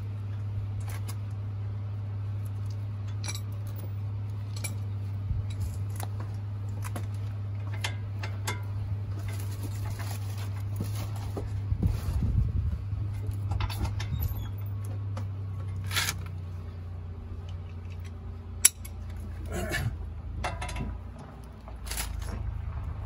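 Hand tools clinking and tapping on the metal of a rear brake hub and rotor, a string of light clicks and knocks with one sharp, louder knock about three-quarters of the way through, over a steady low hum.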